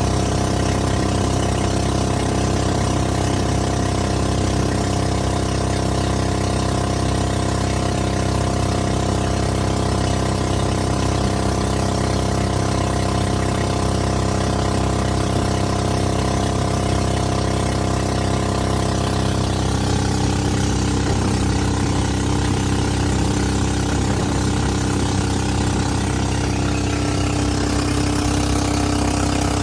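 A fiberglass boat's 13 hp engine running at a steady speed, one even drone throughout; its tone shifts slightly about twenty seconds in.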